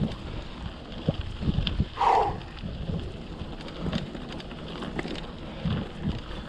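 Hardtail mountain bike rolling over a stony forest track: the frame and parts rattle and knock irregularly, with a steady rumble of wind and vibration on the microphone.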